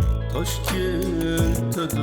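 Background music with a singing voice over a steady beat and bass.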